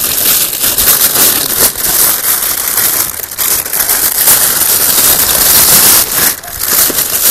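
Clear plastic packaging bag crinkling and rustling loudly as it is handled and a hand pump is pulled out of it.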